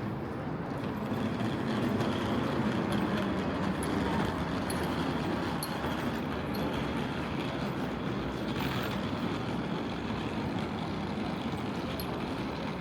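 Steady urban background noise with the low hum of a large road vehicle's engine.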